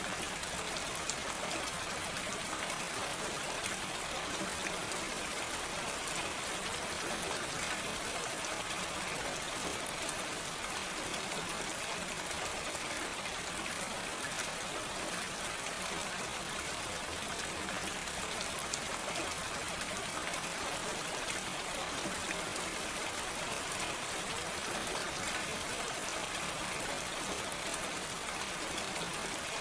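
Steady gentle rain without thunder, an even hiss of falling rain with fine drop ticks throughout.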